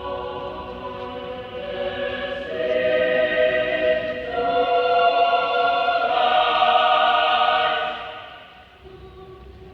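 Mixed adult choir singing sustained chords. It swells to a loud held chord, then drops away sharply about eight seconds in.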